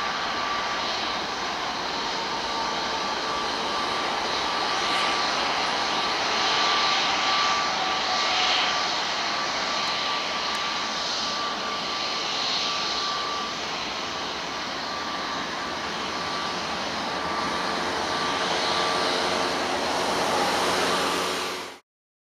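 Boeing 737-800's two CFM56-7B turbofan engines running at high power, a steady jet noise with a thin whine over it, heard from across the airfield as the airliner moves away down the runway. The sound cuts off abruptly near the end.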